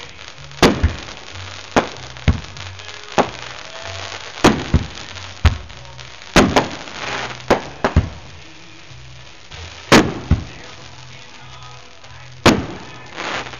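Aerial fireworks bursting overhead: about a dozen sharp bangs at irregular intervals, several in quick pairs, with a longer gap near the middle. Music with a steady bass line plays underneath.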